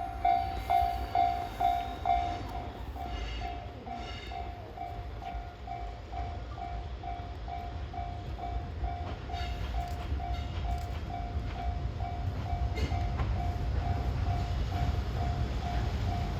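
Japanese railway level-crossing alarm sounding its electronic ding about twice a second, over the low rumble of an approaching train, an EF65 electric locomotive with its coaches, which grows louder in the last few seconds.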